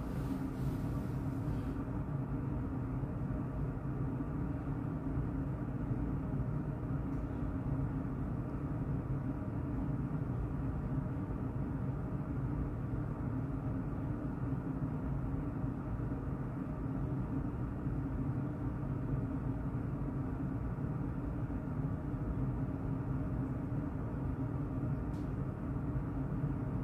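Steady low hum of indoor air-moving equipment running. A faint high hiss over it stops about two seconds in.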